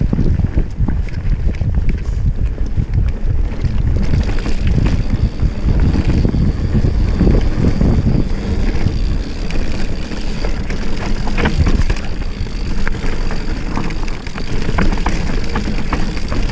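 Wind buffeting the microphone over a mountain bike rolling down a loose, rocky dirt trail: steady tyre and wind rush, with the bike rattling and clacking over rocks, the knocks coming more often in the second half.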